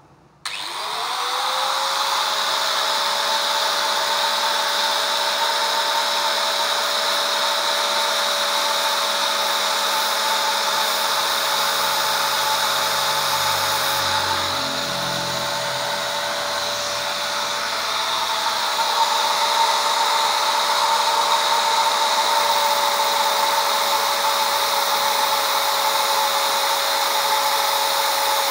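Electric angle grinder with a sanding disc switched on, spinning up within the first second, then running steadily with a high whine. Near the end the disc grinds the cutters of a chainsaw chain to sharpen them.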